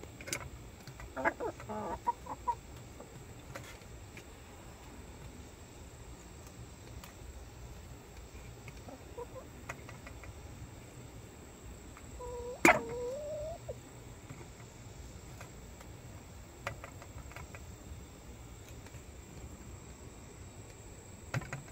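Domestic hens clucking now and then while feeding, with a few short clucks about a second in. About halfway through comes the loudest sound: a sharp tap followed by a rising cluck. Scattered light taps run in between.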